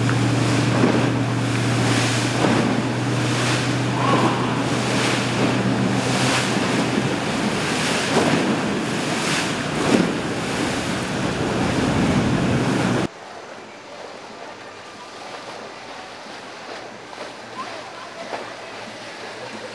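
A cabin cruiser's engine drones steadily as the hull pushes through choppy water, with splashing spray and wind buffeting the microphone. About thirteen seconds in the sound cuts abruptly to a quieter wash of water with a faint engine hum.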